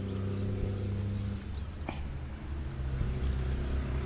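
A motor humming steadily, its note shifting lower about a second and a half in, with a single sharp click near two seconds.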